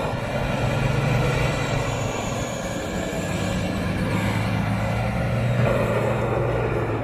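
Mahindra Thar SUV's engine running steadily under load as it drives up a sand dune, its wheels churning the sand.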